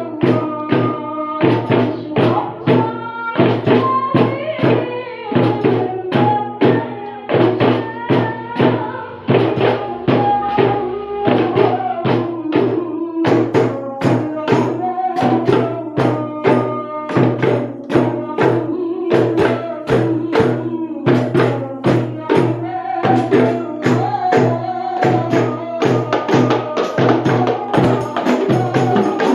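Rebana frame-drum and tambourine ensemble playing a fast, steady rhythm, under a woman singing a sholawat melody with long, ornamented held notes.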